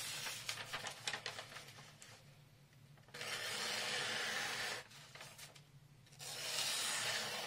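VG10 nakiri blade cutting down through a hand-held sheet of newspaper twice, each cut a steady papery hiss of under two seconds, after a moment of crackling paper handling: a push-cut test of the freshly stropped edge.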